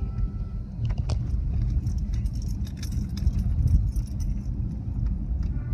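Road rumble inside a car's cabin as it drives over a railroad crossing, with a couple of sharp knocks about a second in, then a light metallic jangling for a few seconds.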